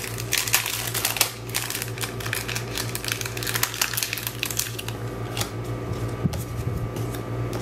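A package of paper die cuts being worked open by hand: crinkling wrapper and quick rustling and clicking of paper pieces, busiest in the first few seconds and thinning out later. A low steady hum underneath.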